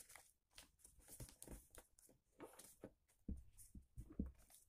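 Faint paper handling: a sheet of paper being folded by hand on a table, with scattered soft rustles and light taps, a few a little louder towards the end.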